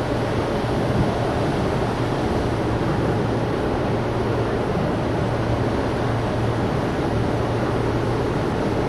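Steady roar of hurricane-force wind on the camcorder microphone, with no break.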